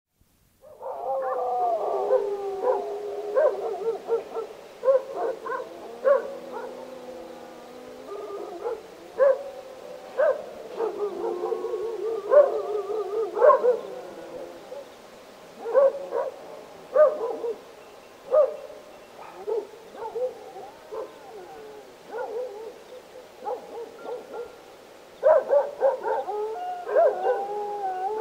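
Several domestic dogs barking and howling together, heard from a medium distance: long, overlapping howls with frequent short barks throughout.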